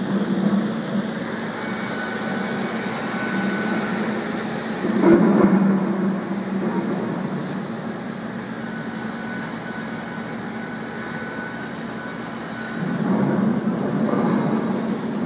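CARER electric automated guided forklift trucks driving across a warehouse floor: a steady electric motor hum that swells about five seconds in and again near the end as the trucks move.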